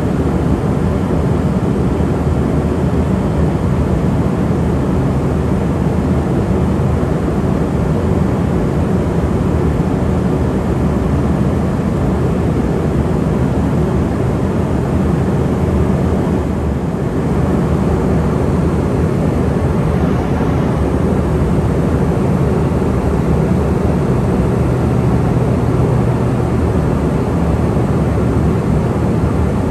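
Steady interior noise of an Embraer ERJ145 regional jet in cruise: the low drone of its Rolls-Royce AE 3007 turbofans mixed with the rush of air past the fuselage, heard from inside the aircraft.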